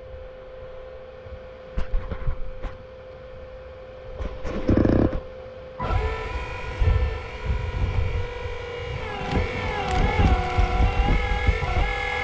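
Hydraulic pump and motor of a 1/8-scale RC excavator running: a steady whine, joined about halfway through by a higher whine that dips in pitch and recovers several times as the hydraulics take load, over low knocks and rumbles from the digging.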